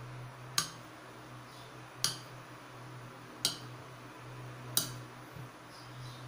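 Kitchen knife cutting through a block of cheese and knocking on a cutting board, four sharp clicks about one every second and a half.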